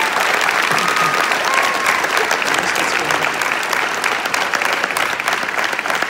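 Audience and cast applauding steadily, with a couple of short cheers in the first two seconds.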